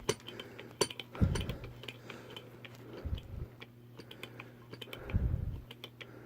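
Handling noise from setting up a handheld hydraulic crimper: scattered light clicks and taps, with three dull low thumps about two seconds apart.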